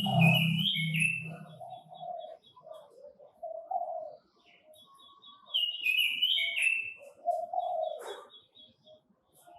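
Quế Lâm birds singing in bursts of chirpy, warbling phrases, with runs of rapid high ticking notes and lower wavering notes between them. A low hum is heard in the first two seconds.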